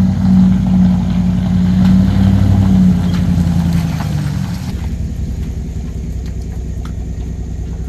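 Pickup truck engine running as it drives up, pulling a loaded car trailer, with a strong low hum; about five seconds in it drops to a lower, steadier rumble.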